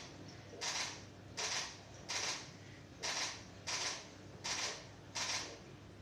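DSLR shutter firing over and over in continuous shooting mode, a short sharp clack about every three-quarters of a second, seven times.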